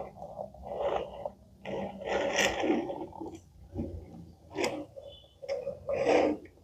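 A plastic toy train sliding across a cloth under a gloved hand, making short, irregular bursts of scraping and rustling, roughly one a second.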